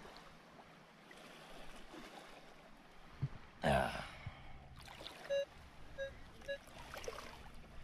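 Shallow water sloshing as a sand scoop is worked in the water, with one loud splash about three and a half seconds in. About a second later a Minelab Equinox metal detector gives three short beeps as it checks the target.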